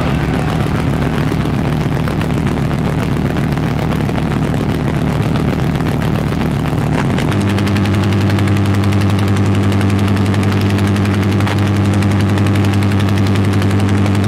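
Power electronics noise music from a cassette: a loud wall of harsh noise over a steady low drone, with a fast pulsing buzz throughout. About seven seconds in, the drone drops to a lower pitch.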